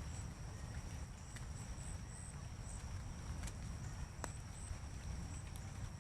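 Outdoor ambience: wind rumbling and buffeting on the microphone, a steady high drone of insects with short chirps over it, and a few sharp ticks.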